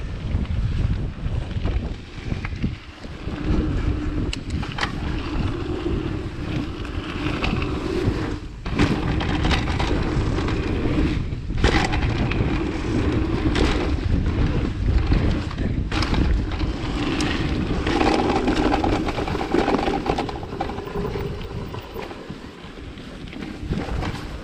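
Mountain bike descending a dirt flow trail: heavy wind noise on the microphone over tyres rolling on dirt and the bike rattling, with a few sharp knocks over bumps.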